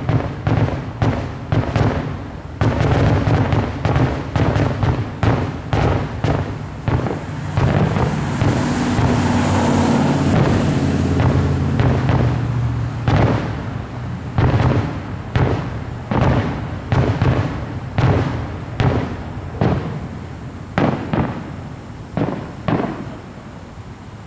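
Aerial fireworks display: shells bursting in rapid succession, the bangs packed close together at first, then coming one by one and thinning out toward the end.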